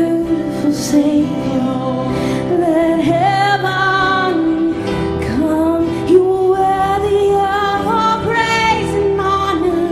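Live worship band playing a slow song, with a woman singing long held notes over the instruments.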